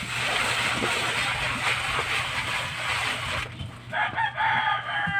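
A rooster crows in the last second and a half, over a steady hiss that fills the first part.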